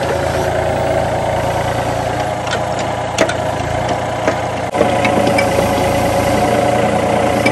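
Yanmar ViO30 mini excavator's diesel engine running steadily under a working operator, with a steady whine over the engine hum. A few sharp knocks come as the arm and bucket are moved.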